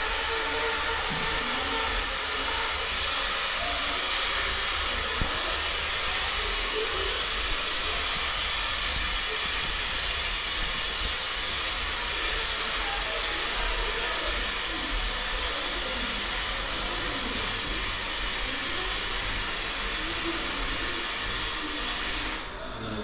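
Steady hissing noise that drops away shortly before the end.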